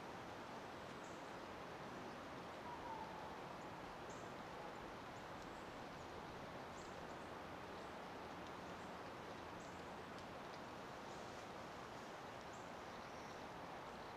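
Faint steady outdoor background noise, an even hiss with scattered faint high chips throughout and a brief faint tone about three seconds in.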